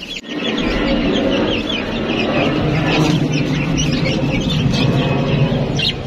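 Many caged birds and chicks chirping rapidly over one another, in dozens of short calls, over a steady low rumble.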